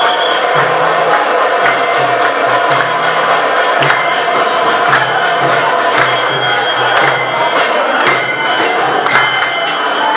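Devotional music with small metal hand cymbals struck in a steady beat, about two strokes a second, each stroke leaving a bright ringing tone, over a low pulsing accompaniment.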